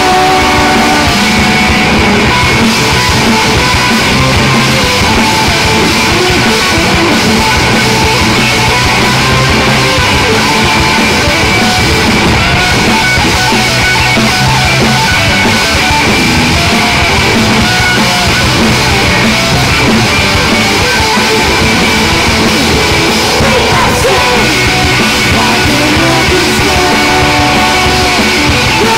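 Punk rock band playing live and loud: distorted electric guitars and drums with a singer's vocals, without a break.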